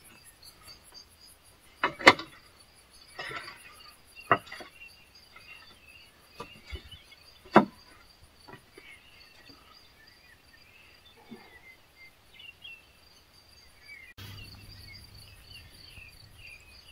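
Crickets chirping steadily, with a few sharp knocks about two, four and seven and a half seconds in.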